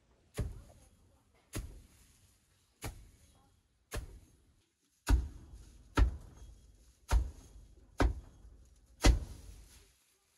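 Dry hay being forked and gathered: nine sharp crunching strokes about once a second, each trailing off in a brief rustle, louder in the second half.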